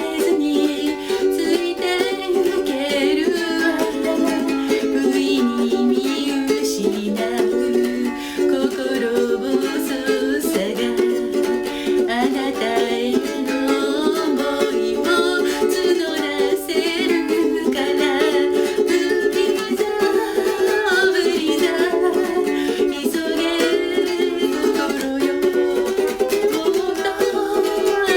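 Ukulele strummed as accompaniment to a voice singing a pop ballad, playing on without a break.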